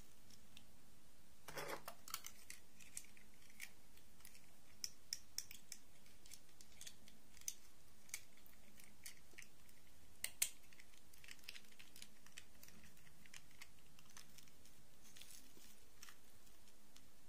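Small plastic clicks and taps from handling small plastic princess dolls: a clip-on plastic dress being fitted onto a doll and the doll set down among the others. The clicks are sparse and irregular, a few together about one and a half seconds in, and the sharpest about ten seconds in.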